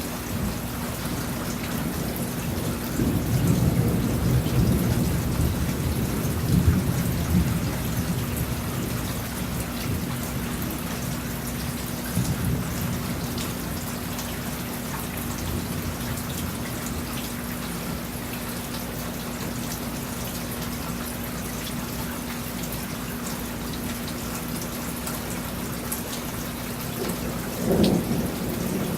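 Thunderstorm: steady rain falling, with a long low rumble of thunder from about three to eight seconds in and a short rumble near the end. A faint steady hum runs underneath.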